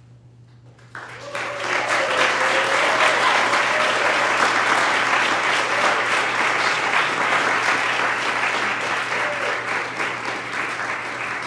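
Audience applause that starts suddenly about a second in, with a few voices cheering among the clapping; the clapping stays loud and eases slightly near the end.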